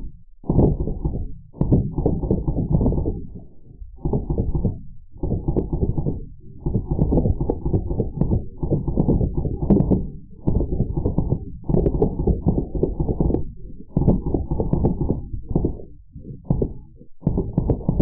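Drozd Blackbird BB guns firing full-auto, heard slowed down: repeated bursts of rapid, deep thuds, each burst about a second long, with short pauses between them.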